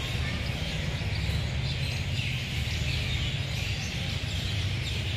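Many small birds chirping over a steady low rumble in a station hall.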